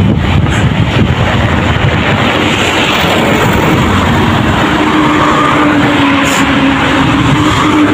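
Road traffic of cars and trucks going by a moving bicycle, mixed with a heavy rumble of wind on the microphone. A steady engine drone joins about five seconds in.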